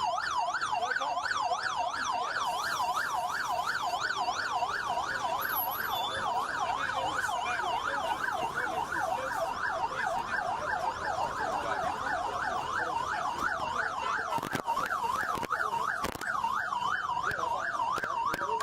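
Siren in a fast yelp, its pitch sweeping up and down about three times a second.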